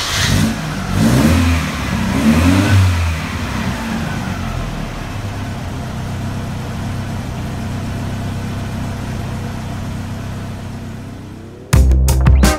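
A vehicle engine revved a few times, its pitch rising and falling, then settling to a steady idle that slowly fades. Music cuts in abruptly near the end.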